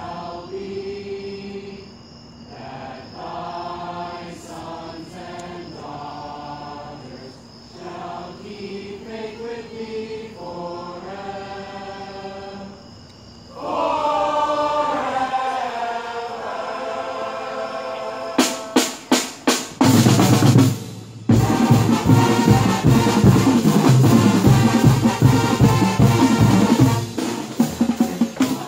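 A college marching band singing together as one large group of voices, louder about halfway through. About two-thirds of the way in, the drumline cuts in with a few sharp snare hits, then plays a loud, fast drum cadence with heavy bass drum beats.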